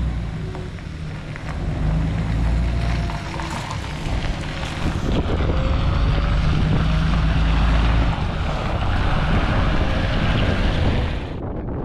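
Diesel engine of a MAN coach bus running as the bus drives slowly past across gravel, a low rumble that grows louder as it draws near. The sound cuts off suddenly near the end.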